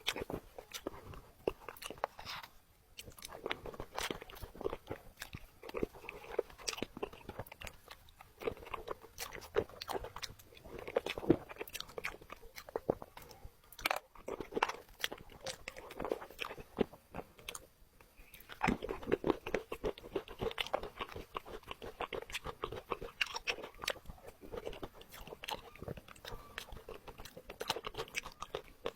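Close-up crunching and chewing of crisp sweet biscuits: dense, irregular crackling bites and chews, with a few brief pauses between mouthfuls.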